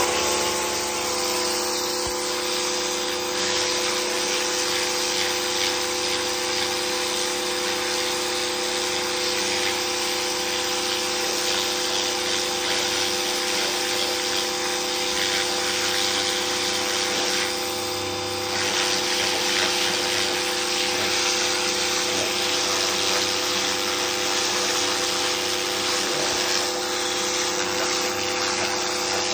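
Pressure washer running: a steady pump-motor hum under the hiss of the water jet spraying onto the fabric and concrete. It starts abruptly right at the beginning and runs on without a break.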